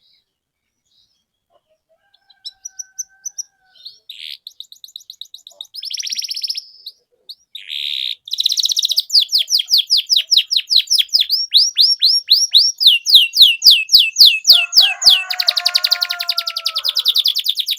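Domestic canary singing: scattered notes begin about two seconds in and build into loud, fast rolling trills of repeated down-sweeping notes, with a lower warbling phrase mixed in near the end.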